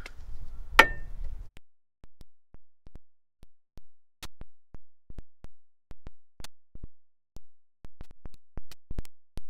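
Club hammer striking the steel steering knuckle of a Ford Focus Mk3 around the strut clamp to drive it down off a seized strut. The blows come in a steady run of two to three a second and grow louder near the end, and each bang is cut short by the microphone.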